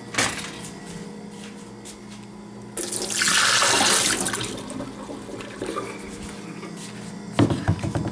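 Kitchen tap running for about a second and a half to fill the coffee maker's pot with water, with a few clicks and knocks from handling the pot before and after.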